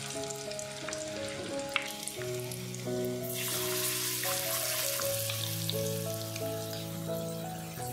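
Marinated chicken pieces sizzling as they fry in hot coconut oil, with a sharp tap just under two seconds in. The sizzle grows much louder from about three and a half seconds in. A soft background melody plays throughout.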